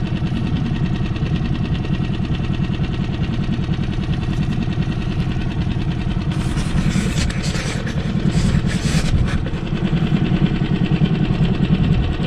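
Steady low rumble, with a stretch of crisp rustling and handling noise from about six to nine seconds in as a small fish is unhooked from a lure.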